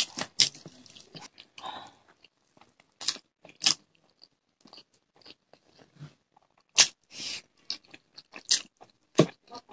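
Close-miked eating sounds: chewing and lip smacks from mouthfuls of rice and curry eaten by hand, a string of short, sharp smacks and clicks at uneven intervals.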